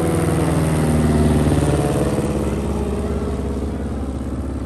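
Single-engine light propeller plane passing low overhead, its engine and propeller loudest about a second in and then slowly fading as it flies away.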